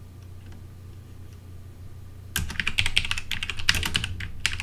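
Typing on a computer keyboard: a quick run of key clicks that starts about halfway through, after a quiet stretch with only a low steady hum.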